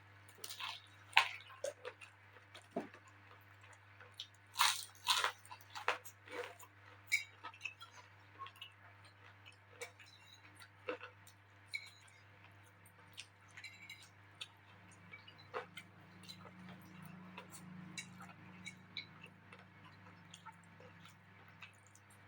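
Close-up eating sounds: someone chewing and biting into crispy smashed fried chicken (ayam geprek), with many short sharp crunches and clicks, busiest a few seconds in.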